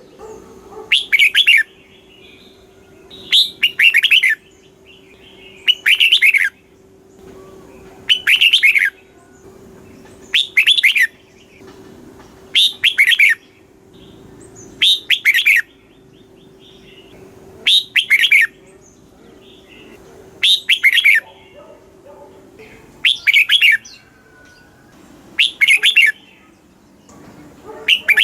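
Red-whiskered bulbul singing: short, loud phrases of quick chirping notes, repeated about every two seconds.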